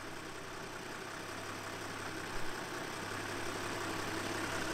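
2005 Toyota LandCruiser Troop Carrier's diesel engine idling as the vehicle creeps forward in first gear with no throttle, growing slowly louder as it approaches.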